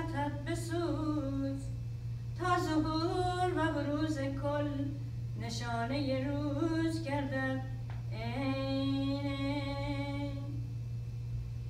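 A woman chanting a prayer solo and unaccompanied, in long wavering melodic phrases broken by short pauses, with one long held note about two-thirds of the way through.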